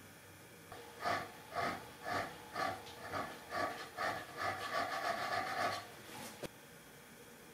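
Hand file stroking along the edge of a steel infill-plane side plate clamped in a vise, about two strokes a second, the plate ringing with each stroke; the strokes quicken and run together before stopping, and a single sharp click follows.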